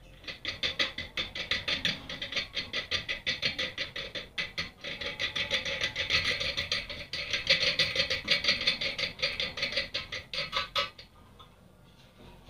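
A hand rubbing or scrubbing a surface with quick back-and-forth strokes, about five a second, which stop about eleven seconds in.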